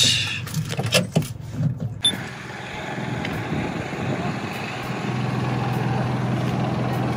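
A few sharp knocks in the first two seconds, then a vehicle engine running steadily at idle with a low hum in a busy car park.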